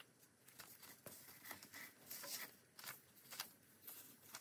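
Faint rustling and light ticks of small paper cutouts being flipped through by hand in a wooden box.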